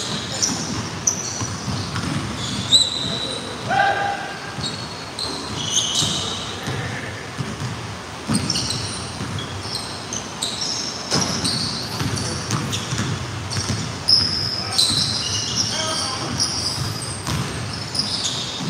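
Basketball bouncing and dribbling on a hardwood gym floor during a pickup game, with many short high-pitched sneaker squeaks and players' voices, echoing in a large gym.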